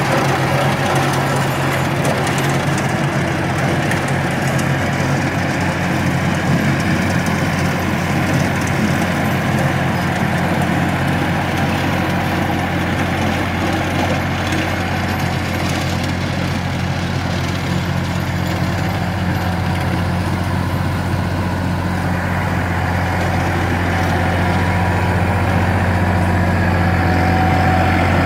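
Massey Ferguson 2605 tractor's diesel engine running steadily as the tractor drives forward with the PTO turning a rear rotary cutter (bush hog). A steady drone, its low note growing a little stronger in the last third.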